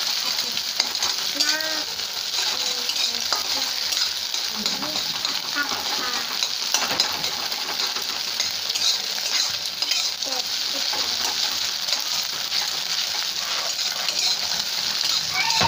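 Beaten egg sizzling as it fries in hot oil in a metal kadai, with a steady high hiss. A metal spatula scrapes and stirs through it, breaking it up into scrambled egg.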